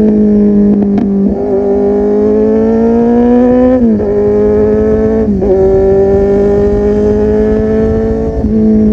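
Kawasaki Z800's inline-four engine through a full-system exhaust, pulling under acceleration: the pitch climbs steadily, then drops sharply at each gear change, three times.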